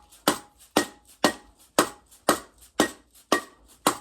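Hammer pounding steadily on the dirt bike engine, about two sharp blows a second with a short metallic ring, to free the crankcase halves for splitting.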